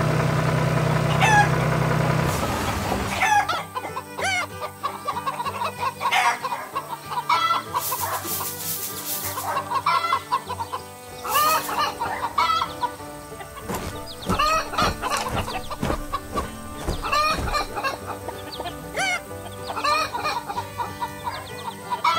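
Hens clucking repeatedly, with a rooster crowing among them, over soft background music. A steady tractor engine hum runs under the clucks for the first couple of seconds, then stops.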